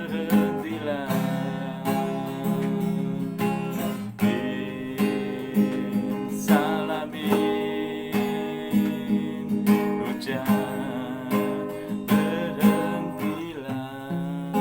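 Acoustic guitar strummed steadily in an instrumental passage of a song, with a wavering melody line over the chords.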